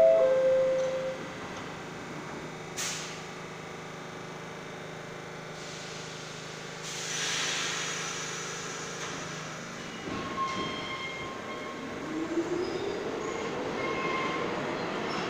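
New York City subway train's falling two-note door chime, followed by short bursts of air hiss. About ten seconds in the train starts to pull out, its traction motors whining steadily upward in pitch as it accelerates, with wheel and rail noise.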